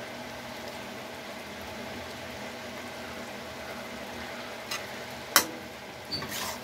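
Drumstick and elephant foot yam curry simmering in a kadhai, a steady low bubbling sizzle. A utensil knocks sharply on the pan about five seconds in, and a spatula scrapes through the curry near the end.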